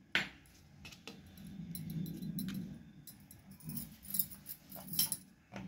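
Wooden rolling pin rolling out a ball of dough on a wooden board, with a knock at the start and a low rumble as it rolls. Bangles on the roller's wrist jingle in short bursts with the later strokes.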